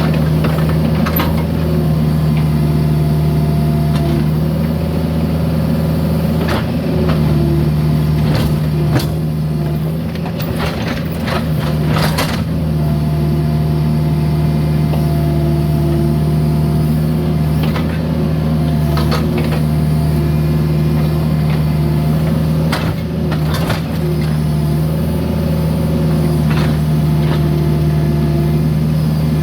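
Mini excavator's diesel engine running steadily under hydraulic load, with a shifting whine that comes and goes as the controls work. Scattered sharp knocks and clanks of the bucket against broken concrete, thickest around the middle.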